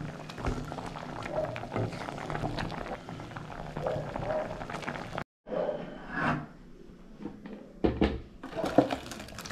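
A wooden spatula scrapes and knocks against a metal pan while stirring a simmering liquid, with voices in the background. The sound drops out briefly about halfway, and louder knocks of the pan being handled come near the end.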